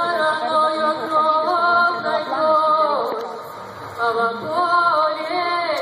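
Women's voices singing long held notes without words picked up by the recogniser, with a break of about a second near the middle.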